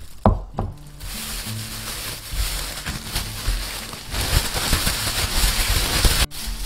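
Plastic bag crinkling and rustling hard as fried glutinous-rice donuts and sugar are shaken vigorously inside it, the donuts thudding against the bag and the board. A sharp knock sounds just after the start, and the rustling cuts off suddenly near the end.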